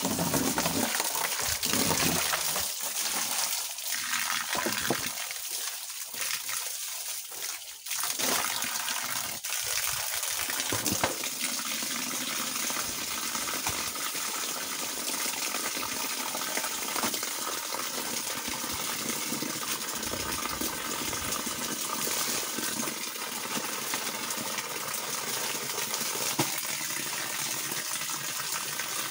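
Water jetting from a garden hose and splashing down onto a person bathing and the ground beneath. The splashing is uneven for the first several seconds and settles into a steady hiss after about eight seconds.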